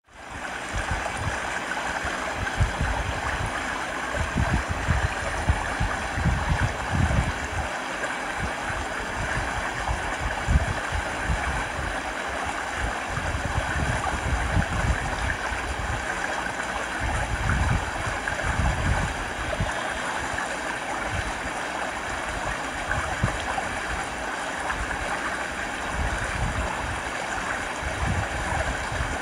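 Fast mountain river rushing and splashing over boulders in a steady rush of white water. Irregular gusts of wind buffet the microphone.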